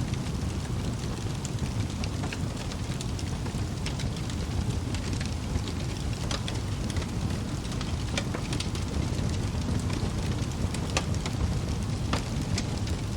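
Wood fire burning in a fireplace: a steady low rumble of flame with frequent sharp crackles and pops from the burning logs.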